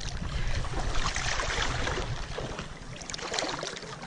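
Sea water splashing, with wind rumbling on the microphone.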